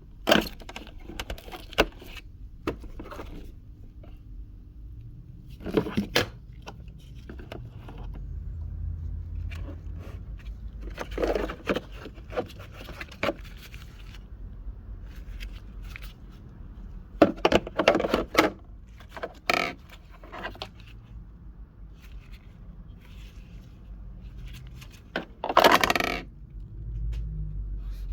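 Intermittent clattering and clinking of small hard objects, with scraping handling noise, over a low rumble. The loudest bursts come in the second half.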